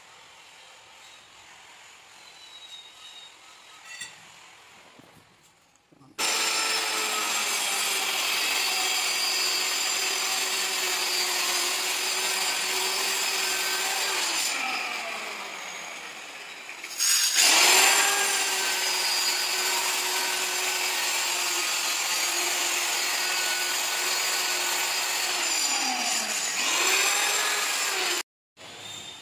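Handheld electric marble cutter running and cutting into a marble slab with a steady high whine. Its pitch sags and picks up again twice, with a harsher, louder stretch as it comes back about halfway through. It starts about six seconds in, after a quiet stretch, and stops abruptly near the end.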